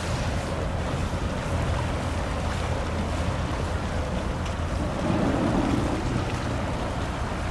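Passing general cargo ship's engine as a steady low drone, over wind on the microphone and the wash of water, with a brief louder swell about five seconds in.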